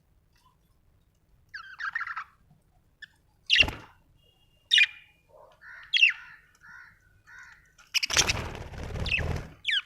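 Budgerigars chirping: sharp single calls and soft chatter after a quiet first second and a half. Near the end comes a burst of rustling noise, with a couple more chirps over it.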